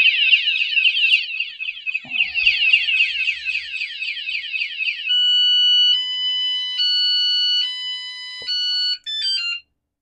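KCMYTONER vibration-sensing bicycle anti-theft alarm sounding. It gives a fast warbling siren for about five seconds, then a run of steady tones stepping between pitches, and then a brief falling chirp before it cuts off near the end as it is switched off.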